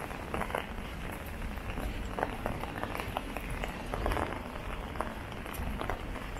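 Drizzle pattering on an umbrella in scattered, irregular drops, with footsteps on wet pavement over a steady low city rumble.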